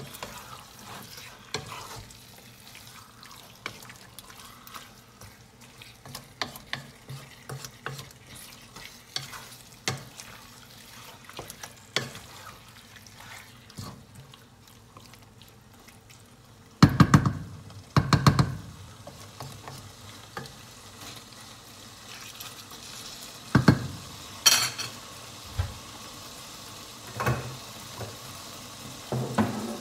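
Wooden spatula stirring chicken pieces in a thick curry sauce in a pan, with many small scrapes and clicks against the pan over the sizzle of the cooking food. A few much louder knocks stand out, two in quick succession just past the middle and several more near the end.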